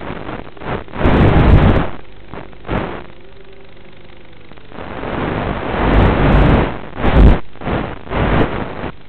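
Wind buffeting the onboard microphone of a radio-controlled aircraft in flight, in irregular loud gusts with quieter lulls. A faint steady hum from the motor and propeller shows through in a lull about three seconds in.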